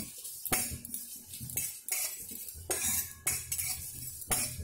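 Metal spatula scraping and clinking against a metal kadhai in irregular strokes, stirring whole spices (fenugreek, fennel, nigella, ajwain, cumin) and dried red chillies as they fry.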